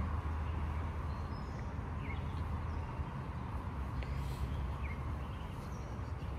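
Outdoor ambience: a steady low rumble of wind on the microphone, with two faint, short bird chirps, about two seconds in and about five seconds in.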